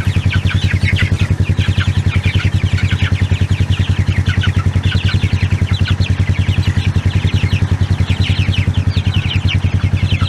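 An engine idling steadily with a fast, even beat, with many young chicks peeping over it in short, high, falling chirps.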